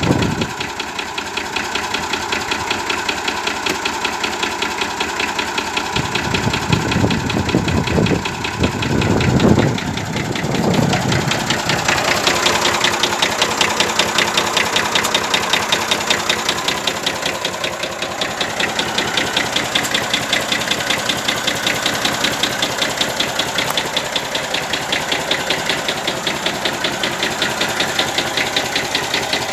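1965 Massey Ferguson 135 tractor engine idling with a steady rhythmic knock, which the owner places at the top of the number 1 or 2 cylinder and takes as a sign the engine needs a rebuild.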